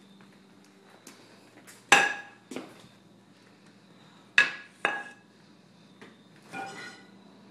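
Metal baseball bats clanking together as they are handled: two pairs of sharp clanks, each ringing briefly, then a softer rattling clatter near the end.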